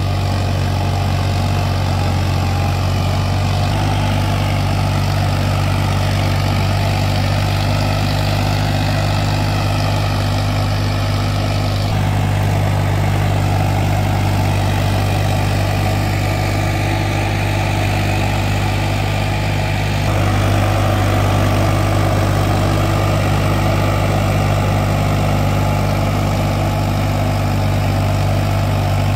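Farmtrac 60 tractor's three-cylinder diesel engine running steadily under load while pulling a tine cultivator through the soil. The engine note shifts slightly a few times.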